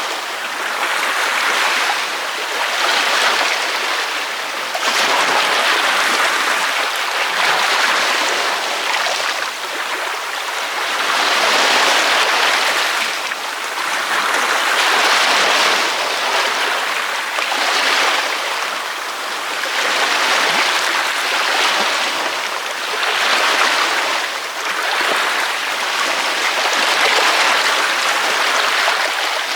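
Ocean waves breaking on a beach, a continuous rush of surf that swells and falls back every few seconds.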